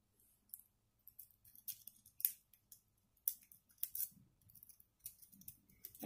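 Faint, irregular metallic clicks and scrapes of a wave rake being scrubbed in the keyway of a Bell 40 mm padlock, with a pry bar end held in as the tension tool.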